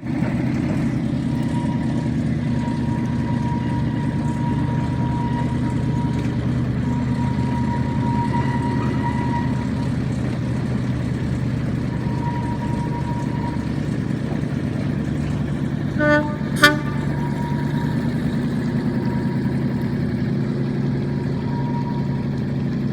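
Suzuki 2.5 hp single-cylinder four-stroke outboard running steadily at cruising speed, pushing a kayak. About two-thirds of the way through, a brief tone is followed by a sharp click.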